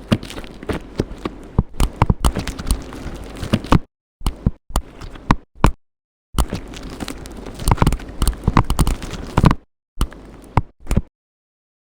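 Slime being squeezed and pressed by hand: a run of sharp clicks and pops over a crackly squelch. It comes in four bursts, each cutting off abruptly into dead silence.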